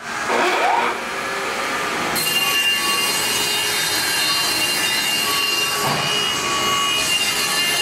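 Vertical panel saw (7000 Series) with its circular blade cutting through a white hardboard panel board: a steady motor whine over a hissing cut, growing brighter about two seconds in.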